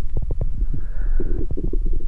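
Amplified heart sounds: a dense run of low, irregular thumps over a steady deep rumble, with a brief hiss about halfway through.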